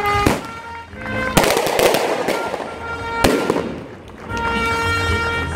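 Fireworks going off: a short bang just after the start, a louder bang about a second and a half in followed by about a second of crackle, and another sharp bang a little after three seconds that dies away. Music with held notes plays at the start and comes back near the end.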